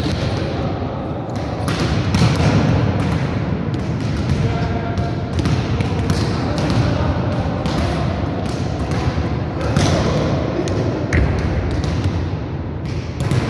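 Volleyballs being hit and bouncing on the floor of a large sports hall: a string of irregular sharp thuds that echo, with faint voices now and then.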